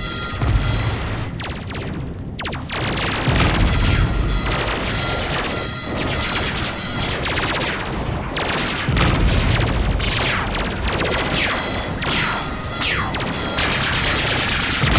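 Synthesized science-fiction battle sound effects: rapid volleys of laser-gun zaps, several of them falling in pitch, over low booming explosions.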